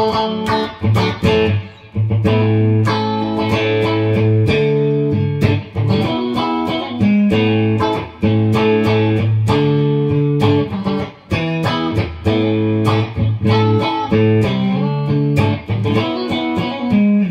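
Clean electric guitar, a Squier Stratocaster Deluxe through a Mesa/Boogie Mark V:25 amp on its clean channel, playing picked chords and single notes through a diode-bridge compressor pedal set to its fastest attack and release.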